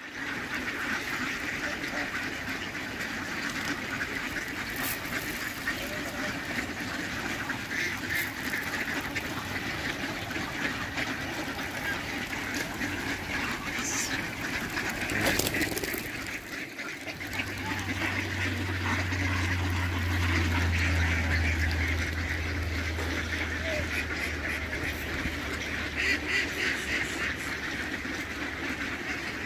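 A large flock of mallards quacking and chattering, many calls overlapping without a break. A low steady rumble comes in a little past halfway and runs on under the calls.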